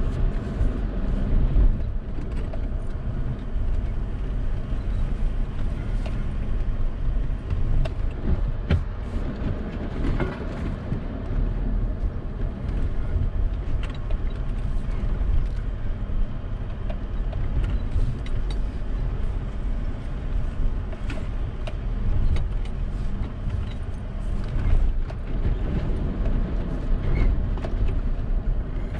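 Toyota Tacoma pickup's engine running at low, steady revs as the truck crawls over a rocky trail, with scattered clicks and knocks from the rocks and the truck body.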